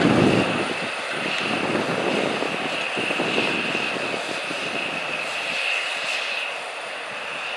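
John Deere 9R-series four-wheel-drive tractor's diesel engine running under load while pulling a chisel plow through the soil, with a steady high whine over the engine drone. It grows gradually fainter as the tractor pulls away.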